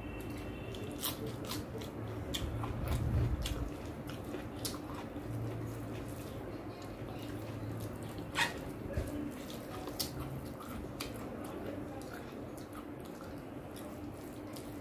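Fingers mixing rice into chicken curry on a plate: soft squishing with scattered sharp clicks.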